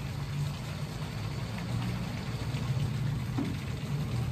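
Steady low machine hum, with a few faint light knocks.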